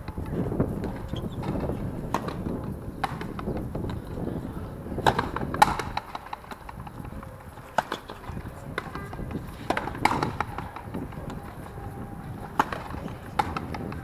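Frontenis rally: a hard rubber ball is struck with strung rackets and smacks against the fronton wall and the court floor. It comes as a string of sharp cracks spaced irregularly, the loudest about five and a half seconds and ten seconds in.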